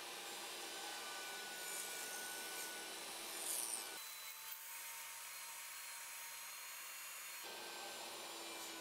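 SawStop jobsite table saw running steadily while a 2x4 is fed through its blade, tilted at 45 degrees, bevel-ripping off a corner as the last cut of an octagon.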